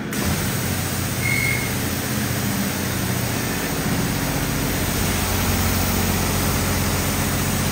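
High-pressure car wash wand spraying water onto a car's body: a steady hiss of spray with a low hum underneath.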